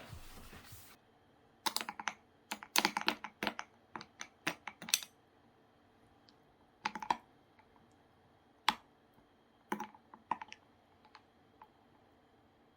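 Irregular light clicks and taps in quick clusters, like small hard objects being handled, after a short hiss in the first second.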